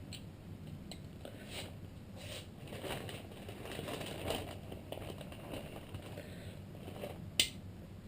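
Hand wrench working a crankcase bolt loose on a motorcycle engine: faint, irregular scraping and rattling of metal tools, with one sharp click about seven seconds in.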